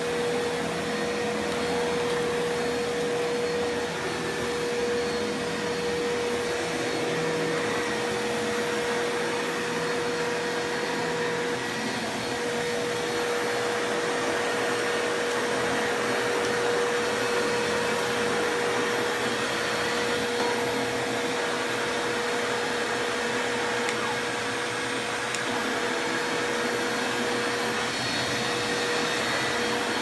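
Canister vacuum cleaner with a powered floor head running steadily over carpet: a constant whine over rushing air.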